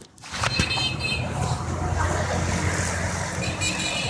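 Steady rumble of road traffic, coming in about a third of a second in and holding even.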